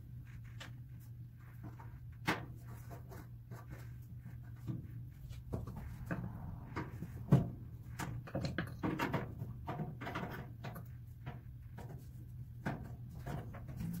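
Screwdriver clicking and scraping on a toaster oven's sheet-metal case as it is taken apart, with scattered taps and clinks of metal, the sharpest about seven seconds in. A steady low hum runs underneath.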